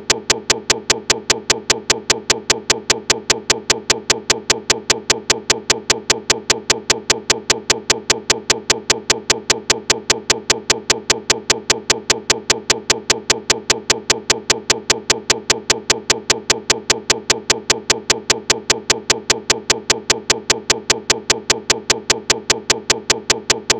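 Digital playback glitch: a tiny fragment of audio repeating mechanically, heard as a steady, evenly spaced clicking of about five clicks a second.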